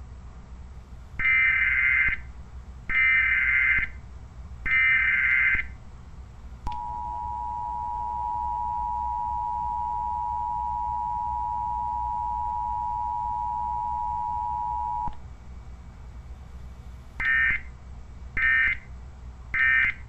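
Emergency Alert System broadcast tones: three one-second digital data bursts (the SAME header that encodes the alert), then the steady two-tone attention signal held for about eight seconds, then three shorter data bursts that mark the end of the message.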